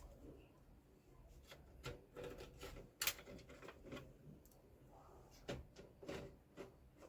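Scattered faint clicks and knocks of plastic printer parts being handled and fitted back together, with one sharper click about three seconds in.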